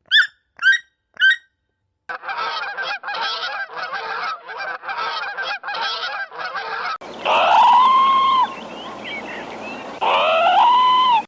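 Bird calls in three quick cuts. First come three short harsh calls. Then a rapid run of noisy, goose-like honks, and finally two long calls that slide up in pitch and hold.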